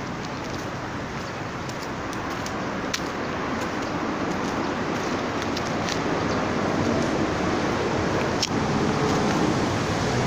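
Steady outdoor background noise of road traffic and wind, growing slowly louder toward the end, with a few faint clicks.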